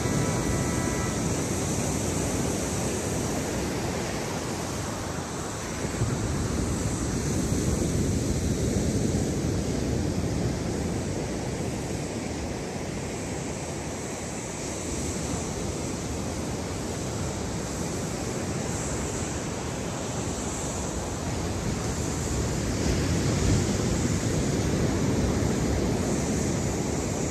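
Ocean surf and wind on the microphone: a steady, deep rushing noise that swells and eases without a break.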